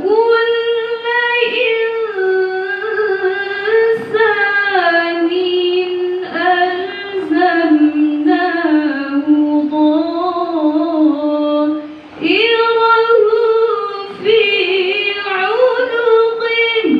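A female Quran reciter (qoriah) chanting in the melodic tilawah style, singing into a microphone. She holds long, ornamented phrases that bend up and down in pitch, with a short breath break about twelve seconds in and another near fourteen seconds.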